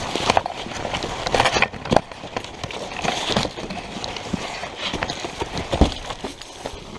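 Footsteps running over rough ground, an irregular run of thuds and clatter.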